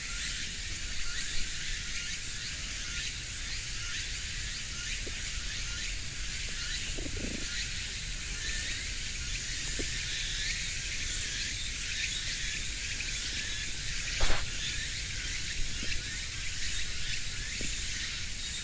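Steady high insect drone over a low rumble, with a single sharp knock about fourteen seconds in.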